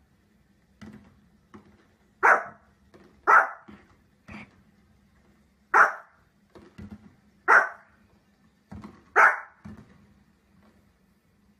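Small fluffy dog barking: five sharp, loud barks spaced one to two seconds apart, with fainter sounds between them.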